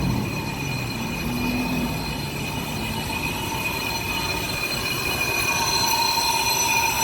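Brake lathe skimming a brake part, its cutting tool squealing against the turning metal with several steady high-pitched tones. A lower whine grows louder near the end.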